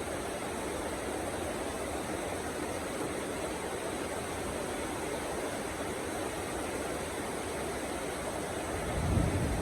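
Heavy rain falling steadily as an even hiss, with a low rumble swelling near the end.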